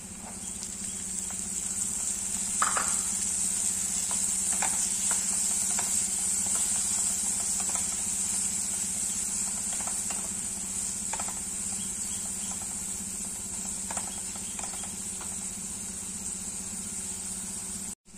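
Frozen green peas sizzling in hot oil with fried onions in a pressure cooker. The sizzle swells over the first few seconds and slowly eases. A wooden spatula stirs and knocks against the pot now and then.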